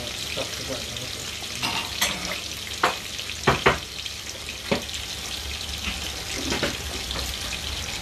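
Chicken pieces frying in oil in a pan: a steady sizzle with several sharp pops, the loudest two close together about three and a half seconds in.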